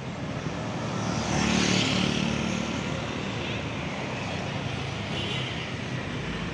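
Street traffic passing close by: motorcycles and a car driving past, a steady engine drone with tyre noise that swells to its loudest about one and a half to two seconds in.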